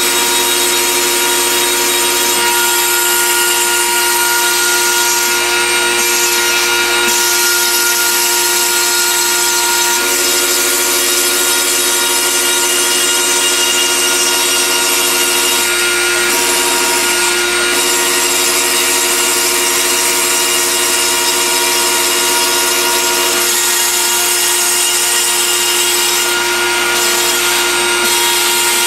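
CNC machine cutting a circles-and-squares test pattern in foam: the spindle runs with a steady whine while the axis stepper motors hum, their tones shifting several times as the cut path changes. Under the Planet CNC controller the cut speeds up as it goes around the circles.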